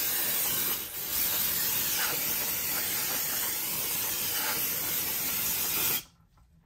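Aerosol brake cleaner spraying onto a brake rotor in a steady hiss, with a brief break just before a second in, cutting off abruptly near the end.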